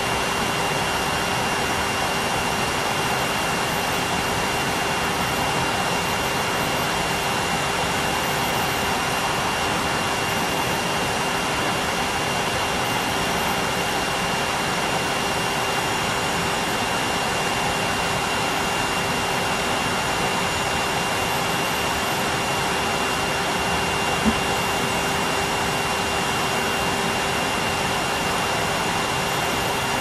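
Numatic Henry canister vacuum cleaner running steadily: an even motor drone with a steady high whine over it. One brief click comes about two-thirds of the way through.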